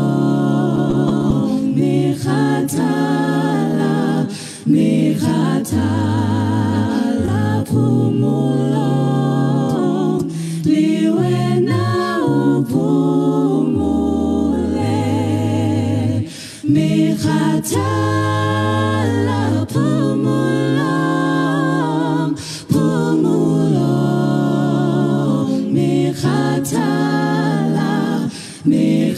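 Unaccompanied vocal group singing in harmony: several voices, from a low bass line up to upper parts, holding long notes with vibrato in phrases a few seconds long with brief breaths between them.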